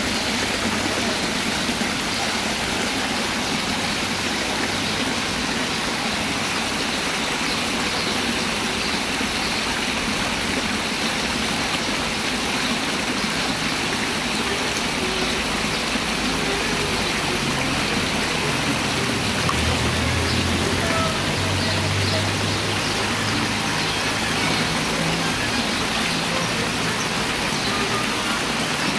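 Steady rushing and splashing of water from garden fountain jets and cascades. A low hum joins in for several seconds from about eighteen seconds in.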